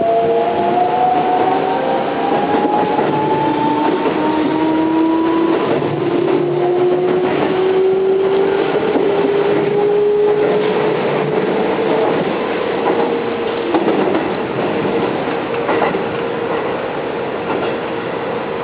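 Keihan 3000 series electric train running, its VVVF inverter and traction motors whining in several tones that climb slowly in pitch as it gathers speed, then hold steady for the second half. Under the whine the wheels rumble and click over the rail joints.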